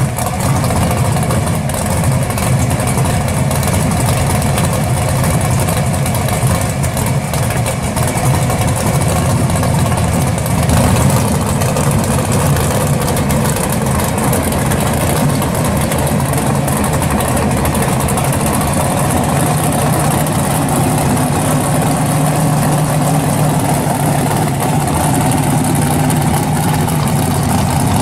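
First-generation Chevrolet Camaro SS drag car's V8 idling steadily while the car creeps slowly forward.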